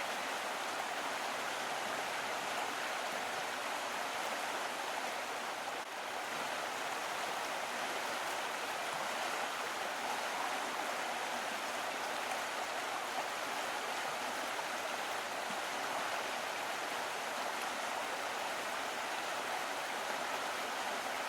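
Small stream of water flowing and trickling in a steady, even rush with no other sounds.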